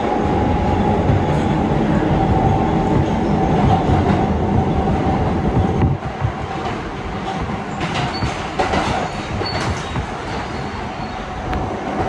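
R160B subway car running through a tunnel, heard from inside the car: a steady loud roar and rumble of wheels on rail with a steady whine. The roar eases about halfway through, and a few sharp clicks and short high squeaks come near the end.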